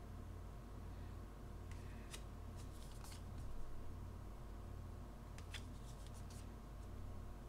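Trading cards being handled: the stiff card stock flicks and slides as single cards are lifted and laid down on piles. There are two short runs of light ticks, about two seconds in and again about five and a half seconds in, over a steady low hum.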